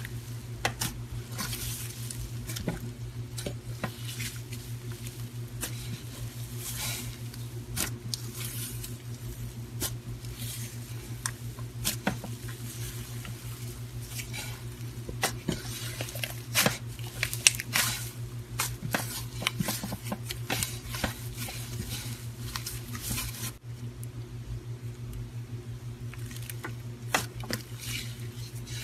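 Hands kneading, squeezing and stretching a mass of thick pink slime, making irregular wet squishes and small crackling clicks. A steady low hum runs under it.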